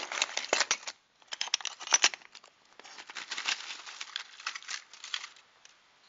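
Sheets of coloured art glass being flipped and slid against one another in a plastic storage tub, a quick run of clicks and scraping. It pauses briefly about a second in, then goes on more softly and dies away near the end.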